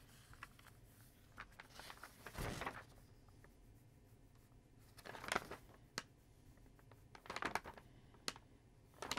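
Pencil drawing on a sheet of animation paper: faint scratchy strokes in about six short spells, with some paper rustling.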